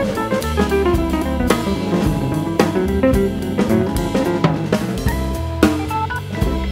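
Instrumental music with a drum kit keeping a steady beat under a bass line and quick runs of melody notes.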